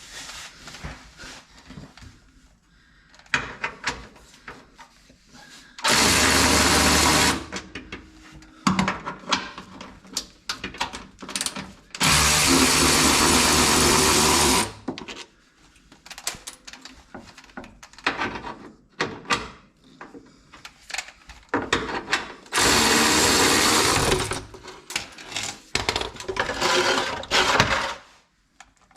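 Handheld power tool running in three steady bursts of one to three seconds each, spinning out the bolts of a factory splash guard, with small clicks and clatter of handling the tool and bolts in between.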